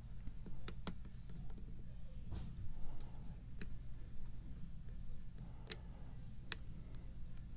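Sharp metallic clicks of a lock pick working the pin stack of a Wilka pin-tumbler challenge lock held under tension, a handful of irregular clicks with the loudest near the end. A steady low hum runs underneath.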